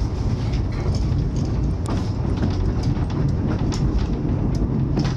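Ōigawa Railway Ikawa Line passenger train moving, heard from on board: a steady low rumble with many scattered short clicks and knocks from the wheels and cars.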